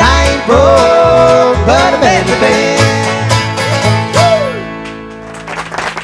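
Bluegrass band of five-string banjo, acoustic guitar, mandolin and upright bass playing the closing bars of a tune, ending on a final chord that rings out and fades about five seconds in. Applause starts near the end.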